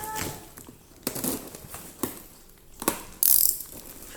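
Handling of newly unboxed archery gear: a few light clicks and knocks, then a short, bright rasp a little after three seconds in.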